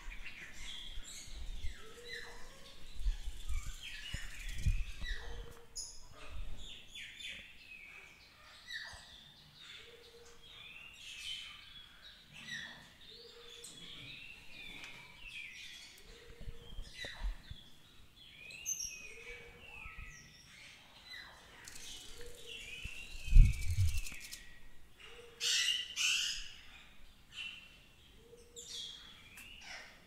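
Several songbirds singing and chirping in a dense chorus of short, quick notes, with a lower short call repeating every couple of seconds. A single low thump about 23 seconds in is the loudest moment.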